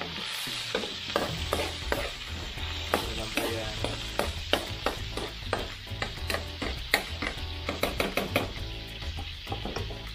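Pork spare ribs, onion, garlic and tomato sizzling in oil in a nonstick frying pan, with a metal spatula scraping and clicking against the pan as they are stirred.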